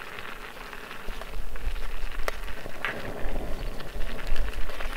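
A pot of spaghetti in sauce and water boiling and being stirred, with a few sharp clicks. From about a second in, a low, gusty rumble of wind on the microphone sets in.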